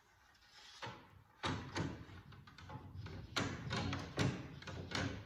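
Irregular knocks and scrapes inside a drywall wall cavity as it is probed through a freshly cut box hole, striking a 2x4 that blocks the path.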